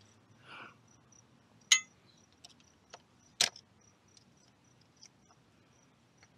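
A few sharp metal clicks and clinks of a hand tool against a motorcycle engine case at an oil plug, the two loudest a little under two seconds in and again past three seconds. Crickets chirp steadily in the background.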